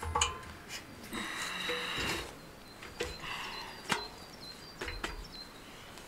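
Split firewood clattering and knocking against a steel wood stove as pieces are handled and set into it: a couple of short clattering runs and a few single sharp knocks.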